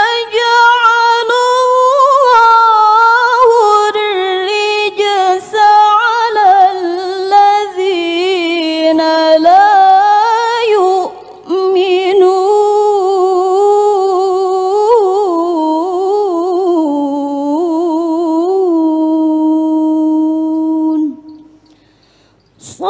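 A woman's voice reciting the Quran in the melodic mujawwad style, drawing out long ornamented vowel lines with a breath about halfway through. The voice sinks in pitch to a long held low note with a light waver, which stops about two seconds before the end.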